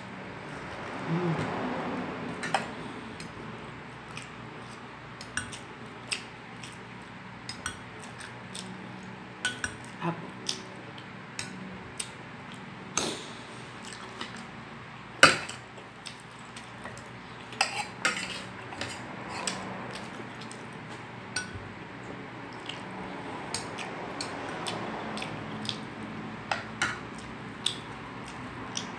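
A metal spoon clinking and scraping against a ceramic plate and bowl in scattered sharp clicks, with close-up chewing between them. One clink about fifteen seconds in is the loudest.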